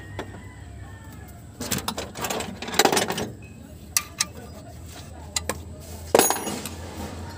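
Metallic clinks and rattles in a few short clusters, about two seconds in and again near the end, with single clicks between, over a low steady hum: tools and metal parts being handled around an engine's timing-belt area.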